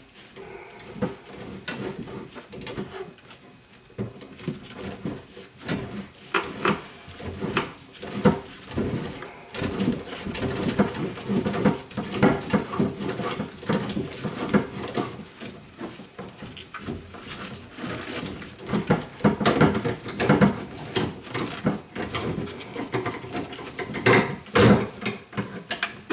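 Irregular knocks, clicks and clatter of tools and metal plumbing parts being handled during work on a shower valve.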